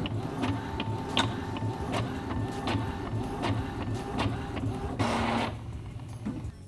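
All-in-one printer printing a copy, the page feeding out with a rhythmic mechanical whir and regular clicks. There is a brief louder rush about five seconds in, and the mechanism stops shortly before the end.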